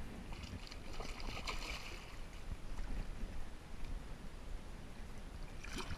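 Water splashing and swirling as a hooked flathead catfish thrashes at the surface in shallow water, most in the first couple of seconds, with wind rumbling on the microphone.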